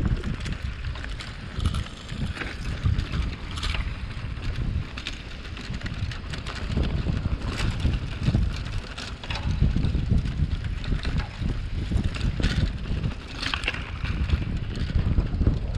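Wind buffeting the microphone of a bicycle-mounted action camera while riding, with frequent short clicks and rattles from the bike jolting over a rough, stony road.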